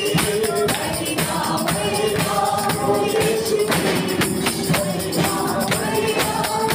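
Hindi Christian worship song performed live: several voices singing together over hand drums keeping a steady, busy beat, with hand clapping along.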